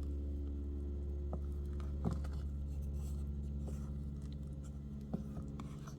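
A steady low electric hum, with a few light clicks and scrapes of a utensil in a bowl as raspberry puree is mixed into whipped cream.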